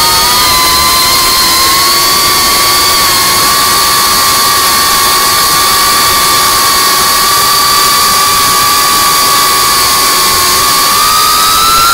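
FPV quadcopter's electric motors and propellers whining at a steady high pitch in cruising flight, over a steady rushing noise; the pitch rises a little near the end.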